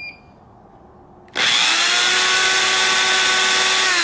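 A short electronic beep, then about a second in an electric drill starts abruptly and runs at a steady speed with a whine. It is spinning the shaft of a fan motor converted into a magnet alternator.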